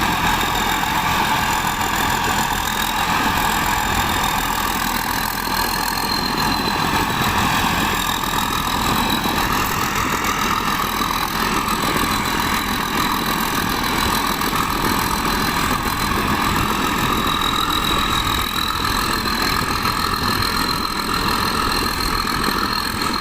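Engine of heavy farm machinery running steadily under load, with a steady high-pitched whine over the engine noise.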